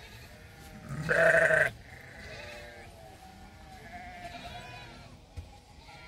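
Sheep bleating: one loud bleat about a second in, followed by fainter bleats.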